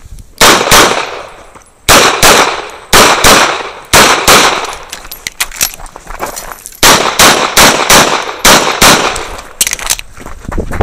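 Pistol shots from a CZ 75 SP-01 AccuShadow fired fast in a USPSA stage, mostly in quick pairs (double taps on each target), with short pauses between groups. The first shot comes about half a second in.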